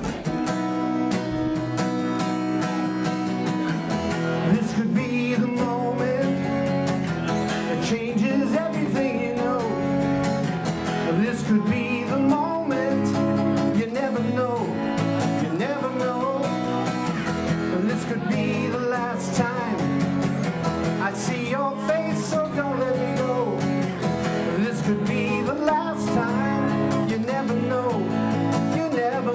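Strummed acoustic guitar with a man singing over it, a solo live performance of an original song; the guitar plays alone at first and the voice comes in a few seconds in.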